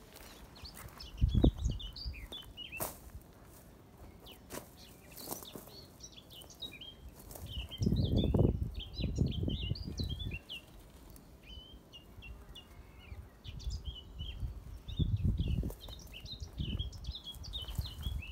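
Songbirds chirping and singing throughout, many short quick notes. Three bursts of low rumbling noise come and go: a short one about a second and a half in, a longer one around eight to ten seconds, and another around fifteen seconds; these are the loudest sounds.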